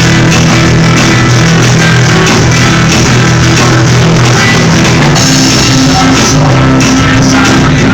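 Loud band music playing steadily, with sustained low notes that shift about five seconds in.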